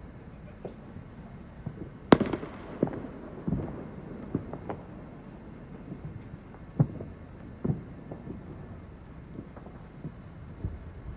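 Fireworks going off: an irregular scatter of bangs and pops with echoing tails. The loudest bang comes about two seconds in and is followed by a string of smaller pops, with more single bangs later.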